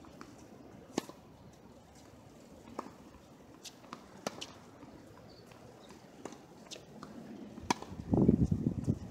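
Tennis ball rally: sharp pops of the ball off racket strings and bouncing on the hard court, the loudest about a second in and more scattered every second or two. Near the end a louder low rumbling noise comes in.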